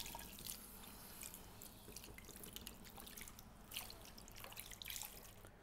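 Faint water from a salon basin's handheld shower spray running over hair into the sink, with scattered drips.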